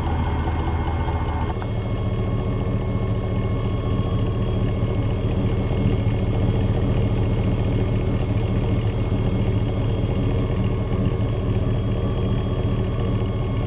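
Chevrolet 5.3L V8 exhaust through a Cherry Bomb muffler, a steady low drone at fairly even engine speed, with a sudden change in tone about a second and a half in.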